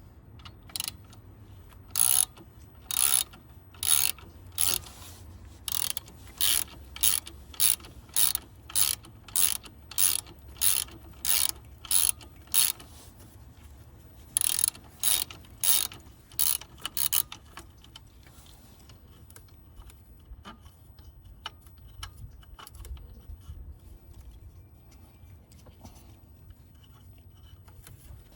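Hand ratchet wrench clicking in about twenty quick strokes, in two runs with a short pause between, then only a few faint clicks.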